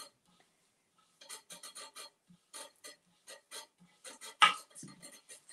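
Fingers rubbing wet, freshly top-coated decoupage paper onto a flowerpot, making short runs of squeaks with each stroke. One louder squeak comes about four and a half seconds in.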